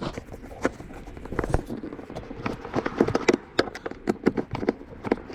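Irregular light clicks and ticks of a hand screwdriver backing out T20 screws from plastic roof trim, coming thicker and faster in the second half.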